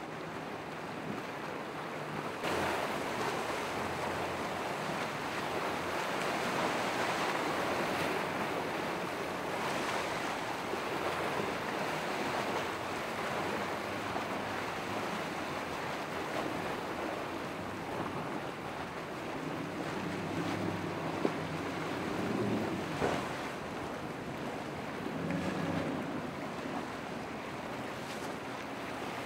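Waves and churning water with wind buffeting the microphone, under the low drone of large outboard motors on boats running through rough water, the engine drone more noticeable in the second half.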